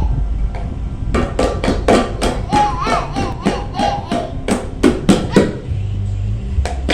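Music with a fast, steady percussive beat, about four strokes a second, and a wavering melody line over a low bass.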